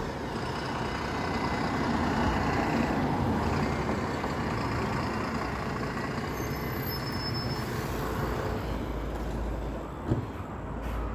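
Street traffic with double-decker buses running close by and cars passing, a steady rumble. A short sharp knock about ten seconds in.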